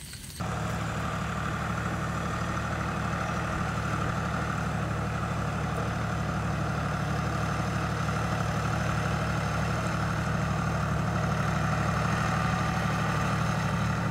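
Engine of a power tiller working a flooded paddy field, running steadily at an even speed; it starts abruptly about half a second in.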